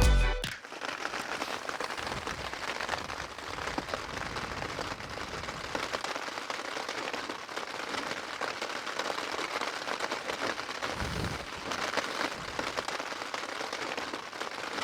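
Heavy rain falling steadily, a dense pattering of drops, with one low gust of wind buffeting the microphone about eleven seconds in. Music cuts off within the first half second.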